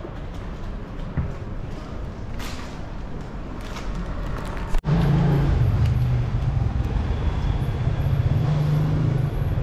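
City street traffic noise; after a sudden cut about halfway through, a louder, steady low rumble of a motor vehicle close by.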